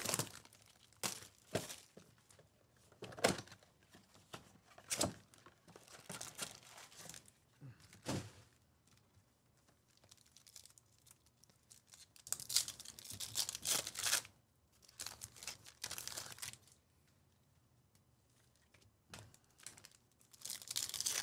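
Trading card packs being torn open: foil wrappers tearing and crinkling in several rustling bursts in the second half, with scattered sharp taps and clicks of cards and boxes being handled before that.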